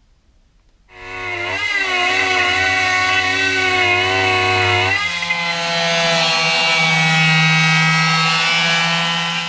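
A small die grinder with a sanding disc starts about a second in and whines steadily as it grinds bare steel on the Beetle's bodywork. At about five seconds it gives way abruptly to an electric angle grinder cutting into the steel panel, with a lower-pitched steady whine.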